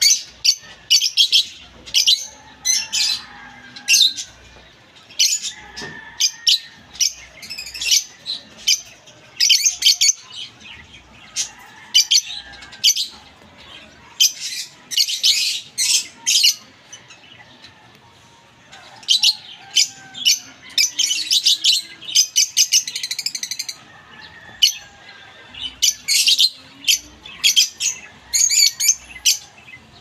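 A group of caged lovebirds chirping and squawking in quick runs of short, high-pitched calls, with a brief lull a little past halfway.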